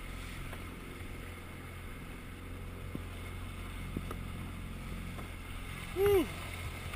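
Yamaha outboard motor running at trolling speed, a steady low hum with water and wind noise over it. A brief voiced sound, like a short 'hm', rises and falls about six seconds in.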